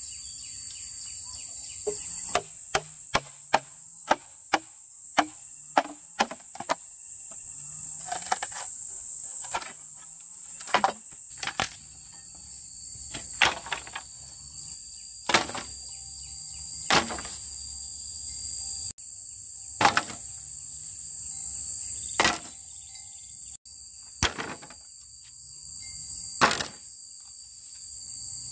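Chopping blows on wood, first a quick run of about a dozen strikes, then single strikes every second or two, over a steady high-pitched drone of insects.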